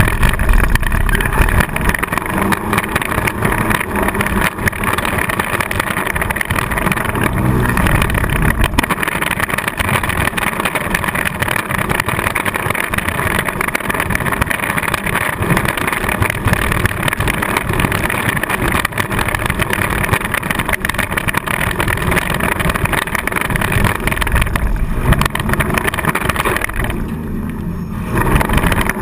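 Four-cylinder demolition derby car's engine running loud and hard, heard from inside the cabin, with a couple of sharp knocks about seven and nine seconds in. The engine eases off briefly near the end.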